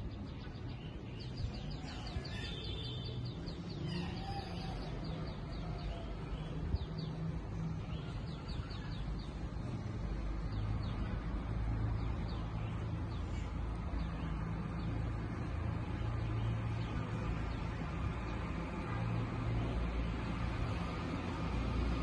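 Steady rain ambience, with a bird calling in quick series of short high chirps through roughly the first half and a low rumble building in the second half.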